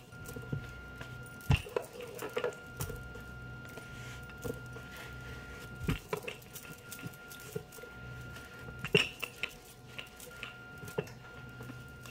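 Wooden rolling pin rolling flatbread dough on a floured wooden board: soft scuffing and rolling, with a few sharp knocks of the pin against the board, over a faint steady hum.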